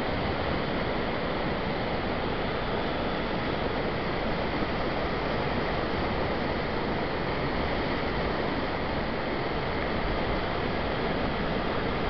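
A river in flood pouring over a weir: a steady rush of churning whitewater.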